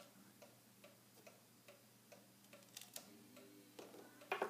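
Faint steady ticking, about two and a half ticks a second, with a few small clicks in the second half, the loudest near the end, as tweezers set the small springs and pins from a gutted pin tumbler lock into a plastic pin tray.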